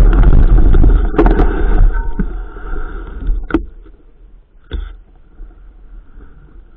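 Wind buffeting the microphone and a mountain bike rattling over rough ground. The loud rumble drops away after about two seconds, leaving a few sharp knocks.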